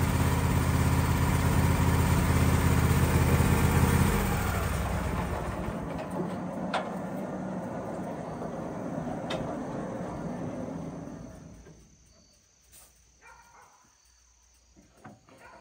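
Wood-Mizer LT15 band sawmill running at the end of an edging cut through a poplar board. About four seconds in, the engine's note stops, and the blade and band wheels spin down, the noise fading away over several seconds to near quiet. A couple of sharp clicks sound during the run-down.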